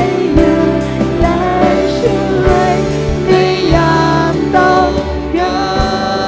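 Live band playing a worship song: several voices singing together over electric guitars, bass, keyboard and a steady drum beat.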